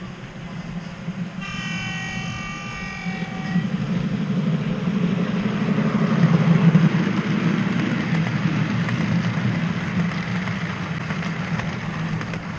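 Sound effect of a diesel-hauled train passing through a station without stopping: the locomotive's horn sounds for about two seconds early on, then the rumble of the train builds to its loudest about halfway through and slowly eases off.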